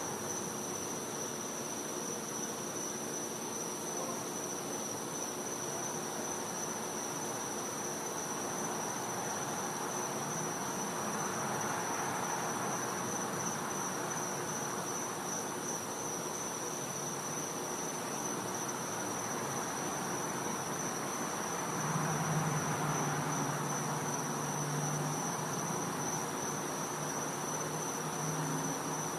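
Night insect chorus: one steady, unbroken high-pitched trill over a soft background hiss. About three-quarters of the way through, a low hum joins for several seconds.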